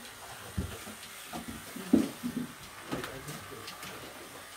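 Handling sounds at a grooming table: a few scattered knocks and rustles, the loudest about two seconds in, with faint murmured voices.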